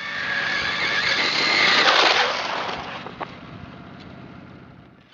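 A radio-controlled car speeding past, its high motor whine and tyre noise rising to a peak about two seconds in. The whine drops in pitch as the car passes, then fades away.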